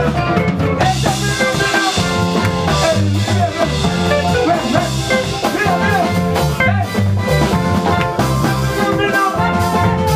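Live band playing a groove: drum kit, a stepping bass line, electric guitars and keyboard, with a singer on a microphone.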